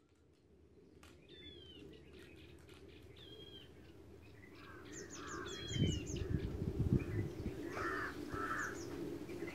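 Birds calling all around: repeated short downward-sliding calls and quick high trills, fading in after about a second. A few low thumps come through around the middle.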